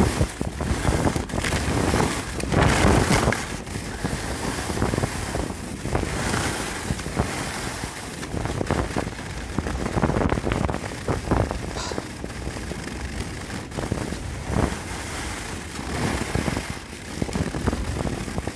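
Skis sliding and scraping down a groomed run with wind rushing over the microphone, a steady noise broken by irregular rubs and knocks from the phone carried in the skier's coat.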